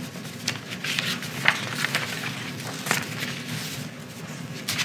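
Paper rustling and being leafed through at a lectern: scattered soft clicks and rustles at irregular intervals over a steady low room hum.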